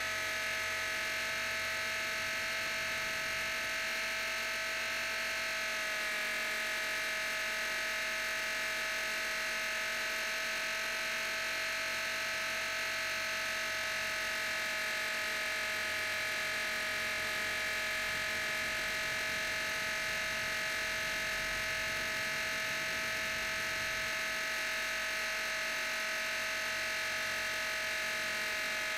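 Blade 450 X RC helicopter's brushless electric motor and rotor in flight, a steady high-pitched whine made of several tones, heard from a camera mounted on the helicopter. The pitch steps very slightly about six seconds in.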